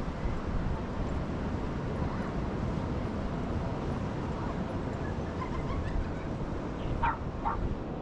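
Steady rush of ocean surf. A dog barks twice, about half a second apart, near the end, with a few fainter yips shortly before.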